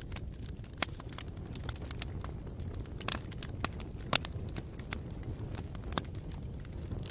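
Wood fire burning with a steady low rumble and irregular sharp crackles and pops, the loudest about four seconds in.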